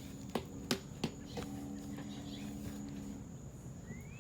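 Outdoor ambience: three sharp clicks or taps within the first second, a steady high insect-like buzz throughout, a low steady hum for about two seconds in the middle, and a short rising bird chirp near the end.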